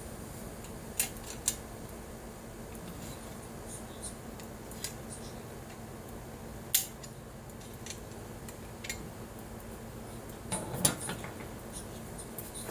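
Hand snips cutting thin aluminum sheet: a few separate sharp metallic snips, with a quick cluster of them near the end, over a steady low hum.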